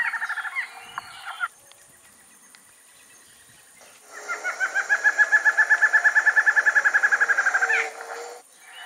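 Barred antshrike singing: a long, rapid run of nasal notes, about ten a second, that starts about four seconds in, swells in loudness and ends in an emphatic upslurred note. A shorter burst of similar calls comes at the start, and another at the end.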